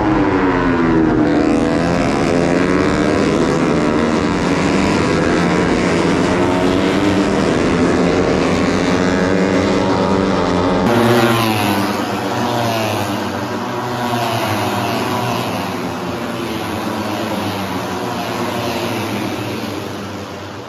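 Racing motorcycle engines at high revs passing on the circuit, their pitch sweeping up and down through gear changes and fly-bys, with several bikes heard at once. It becomes a little quieter after about eleven seconds.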